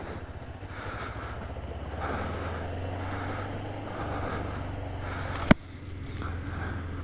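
Kawasaki motorcycle engine running steadily under way, heard from a microphone inside the rider's helmet with a light hiss of wind. A single sharp click about five and a half seconds in.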